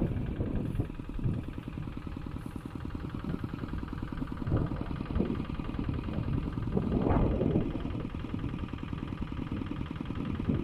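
Single-cylinder engine of a paddy-ploughing hand tractor running steadily with a fast, even firing beat, swelling louder a couple of times as it works.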